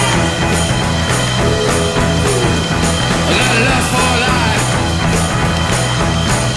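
Rock song with a steady drum beat and a singing voice.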